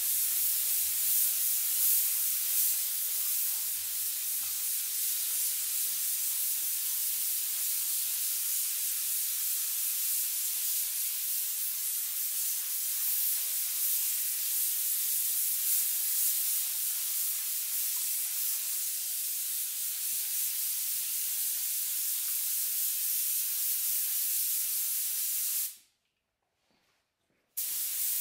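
Compressed-air gravity-feed spray gun hissing steadily as it sprays paint. The hiss stops for about a second and a half near the end, then starts again.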